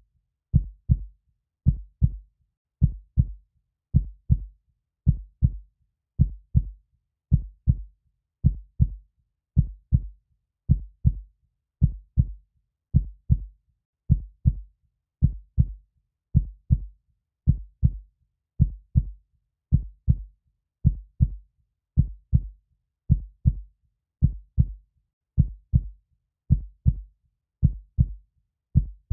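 Human heartbeat, a steady lub-dub with two low thumps per beat at a little more than one beat a second.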